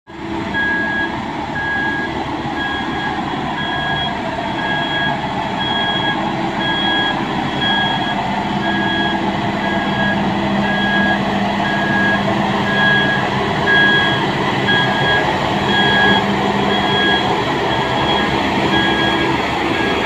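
HAMM HC 119 D padfoot soil compactor running with a steady diesel drone as it drives over the dirt road bed, its warning alarm beeping about twice a second.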